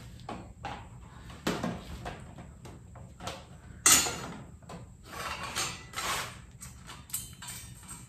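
Metal rear luggage rack clanking and knocking against the e-bike's rear fender and frame as it is set in place. There is a series of short knocks, with the loudest sharp clank about four seconds in, then a couple of seconds of scraping and rattling and another knock near the end.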